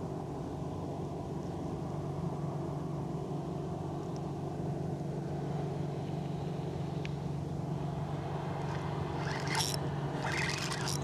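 A motor's steady low drone, with a few short scraping clicks near the end.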